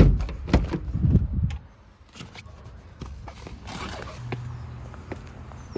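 A loud knock and a few thumps as a person climbs out of a car by its running board, then quieter scuffs, small clicks and footsteps, with a faint low hum in the second half.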